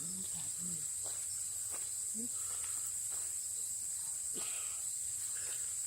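Steady high-pitched insect chorus, an even drone that holds throughout, with a few soft taps scattered through it.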